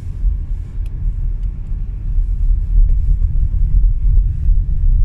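Low, steady rumble of a car's tyres and engine heard from inside the cabin while driving on an icy, snow-covered road.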